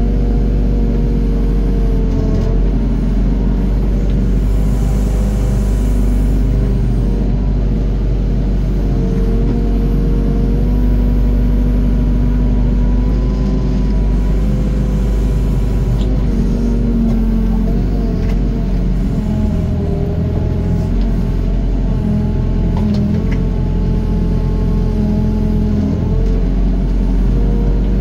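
Doosan DX55 mini excavator's diesel engine running steadily with a deep rumble, its pitch rising and dipping a little as the hydraulics take load while it digs and dumps soil.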